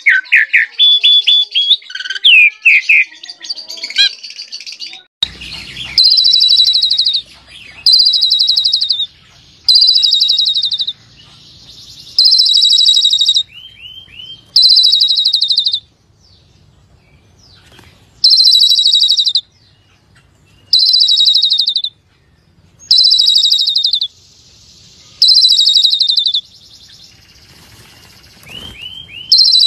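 Asian pied starling (jalak suren) singing hard: for the first few seconds a loud, varied warble of whistled slurs and glides, then a harsh, rattling trilled phrase about a second long, repeated roughly every two seconds, with a few short falling notes in the gaps.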